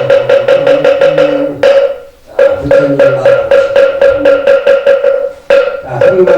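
Moktak (Buddhist wooden fish) struck in a fast, even beat, several strokes a second, keeping time under a chanting voice. It breaks off briefly twice, about two seconds in and again near the end.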